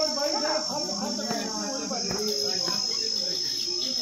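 Insects trilling steadily in one continuous high-pitched drone, with faint background voices talking over it in the first couple of seconds.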